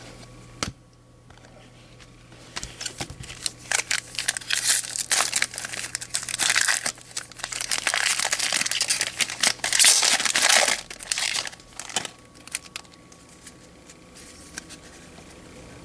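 A foil trading-card pack wrapper being torn open and crinkled, in irregular bursts of crackling from a couple of seconds in until about eleven seconds, then only a few faint ticks of handling.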